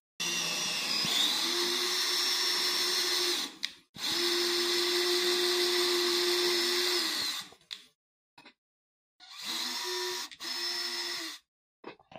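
An 18 V cordless drill-driver running in bursts with a bit in the foot of a cast-iron sewing machine leg: two runs of about three seconds, the first speeding up a second in and the second slowing down as it stops, then two short runs near the end.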